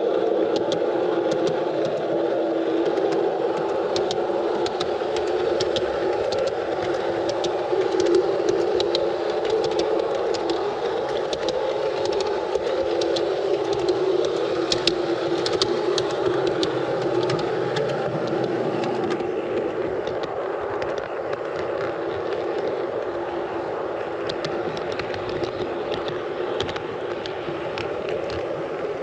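G scale model train running along the track, a steady mechanical drone from the locomotive's motor and gears with frequent sharp clicks from the wheels over the rails. The clicks thin out and the running noise eases slightly about two-thirds of the way through.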